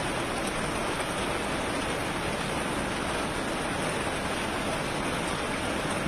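Steady, even rush of water, such as floodwater pouring or heavy rain.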